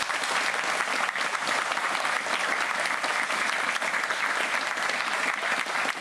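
A large group of seated people applauding: dense, steady hand-clapping.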